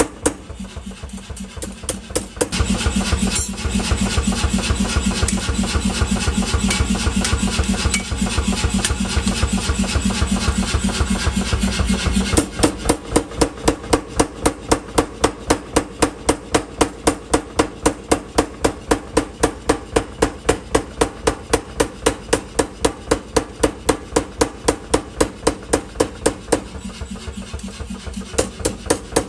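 Hammer blows on steel in a fast, even rhythm while a sickle blade is forged. From about two seconds in until about twelve seconds, a loud steady machine noise with a low hum runs under the blows.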